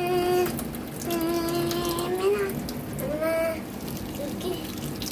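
Kitchen tap running into a stainless steel sink, water splashing over hands being rinsed. Over it, a voice holds three drawn-out sung notes without words, the second one long and rising slightly at its end.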